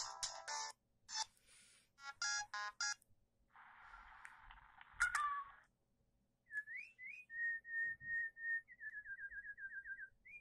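Short ringtones and alert sounds of a Siemens CF62 mobile phone played one after another: the end of a chiming tune, a short hiss, a brief beeping jingle and a longer hiss. It ends with a whistle-like tone of two rising chirps, a held note and a run of quick pulses.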